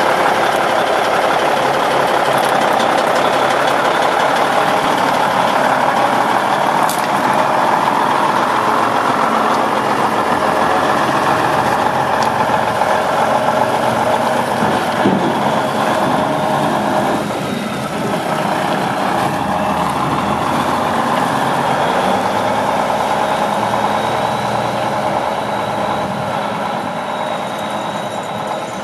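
1994 International 2574 dump truck's diesel engine running steadily, a little quieter near the end.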